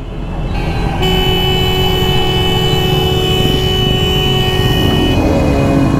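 A vehicle horn held steady for about four and a half seconds over the running of a motorcycle engine; near the end the tone dips and settles at a lower pitch. The motorcycle is a Yamaha RX135 two-stroke.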